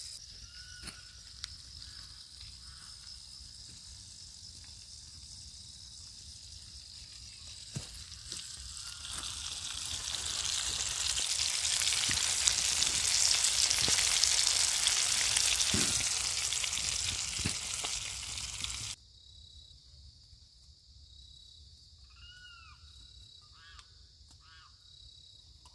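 Fish frying in hot lard in a pan: the sizzle swells loud from about a third of the way in, then stops abruptly. Crickets keep up a steady high ringing throughout, with a few short chirping calls near the end.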